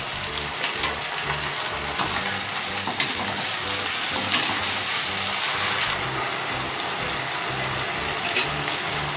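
Onions, capsicum and ginger-garlic-green-chilli paste sizzling steadily in hot oil in a kadai as they fry, with a few sharp clicks.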